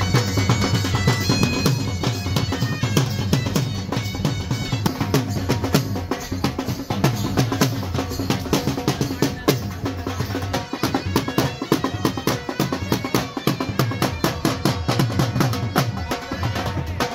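Dhol drums beaten in a fast, driving rhythm, with a reed pipe playing held notes over them for the first five seconds or so; after that the drums carry on alone.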